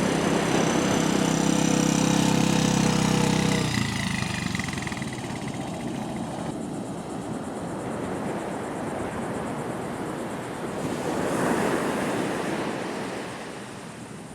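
Car engine running steadily for about four seconds, then it stops. Steady wind and ocean surf noise follow, swelling briefly near the end.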